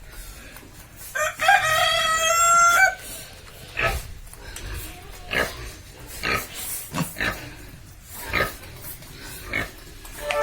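A rooster crows once, a long call starting about a second in, the loudest sound here. Pigs grunt in short, separate grunts every second or so after it.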